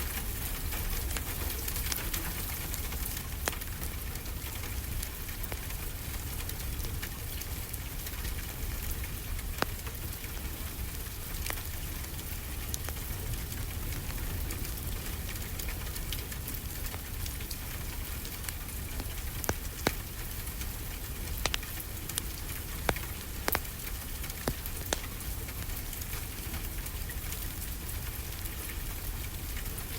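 Steady rain with a low rumble underneath, and a crackling fireplace giving scattered sharp pops, several close together in the second half.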